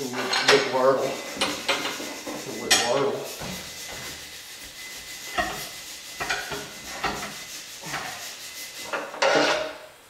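Rubber tire and steel tools rubbing, scraping and clanking on a tire-changer machine while a skid steer tire is worked on its rim, in irregular bursts with the loudest at the start, near three seconds and just before the end.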